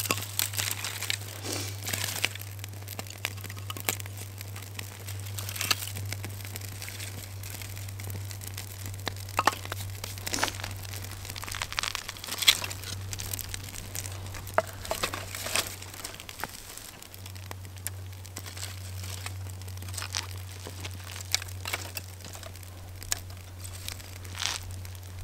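Dry twigs and sticks rustling and snapping as they are handled and piled onto a small, newly lit wood fire, with scattered sharp cracks all through and a steady low hum underneath.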